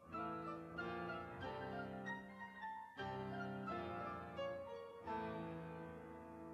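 Background music: slow piano, notes and chords struck about once a second and left to ring, dying away near the end.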